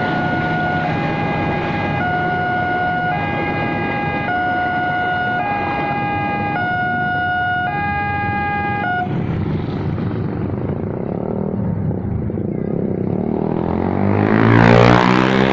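Automatic level-crossing warning alarm sounding an alternating high-low two-tone chime, switching about once a second, over the rumble of a passing train; the alarm stops about nine seconds in. Near the end a motorbike passes close by, the loudest sound.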